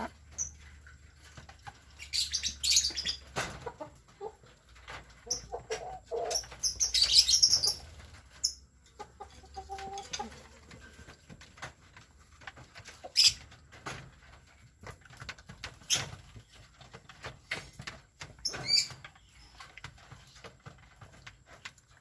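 Village chickens (ayam kampung) flapping their wings in two loud flurries, the second about seven seconds in, with a few short clucks and scattered scratching and tapping between them.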